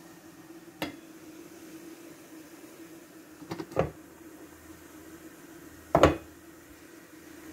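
Aluminium steamer lid knocking against the metal pot: a light click about a second in, a quick double clink as the lid is lifted off, and a louder clank about six seconds in, over a steady low hum. The lid comes off to check that the steamed rice is done.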